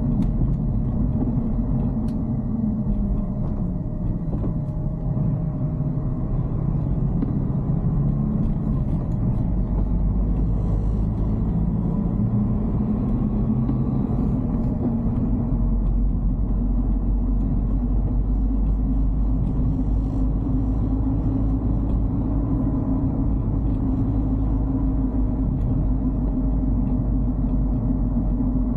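Dacia Duster heard from inside the cabin while driving: a steady low rumble of engine and road noise. The engine note dips in pitch a few seconds in, then climbs again with speed and settles.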